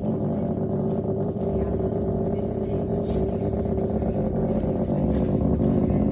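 Glass-door mini beverage fridge running with a loud, steady droning hum from its cooling unit, like a motor running. The noise is abnormally loud for a fridge, likened to a space shuttle taking off.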